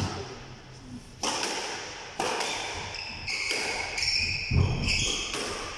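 Squash rally: sharp cracks of the ball off rackets and walls about once a second, one heavier thud about four and a half seconds in, and court shoes squeaking on the floor in the second half.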